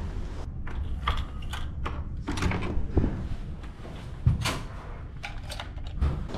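Hotel room door being unlocked with a key card and opened: the lock and lever handle click and rattle several times, with a single low thud from the door about four seconds in.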